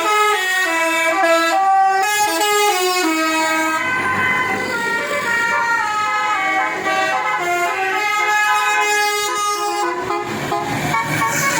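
A bus's telolet basuri musical air horn plays a tune of quick stepped notes. There are two runs of melody, with a rush of noise and fewer notes in the middle.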